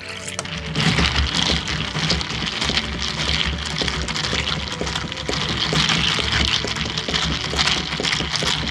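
Milk pouring over ice in a plastic cup for about the first second, then a long bar spoon stirring the milk, strawberry syrup and ice: ice cubes rattling and clicking against the plastic with liquid swirling.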